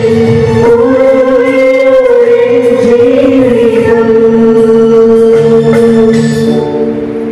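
Church choir singing a hymn, holding one long note at a steady pitch that fades away near the end.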